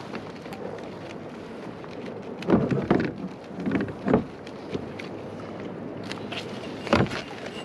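Several dull thumps and knocks as a gopher rockfish is handled and put on a stringer in a kayak: a cluster about two and a half seconds in, more around four seconds, and one sharp knock near the end, over a steady hiss of wind and water.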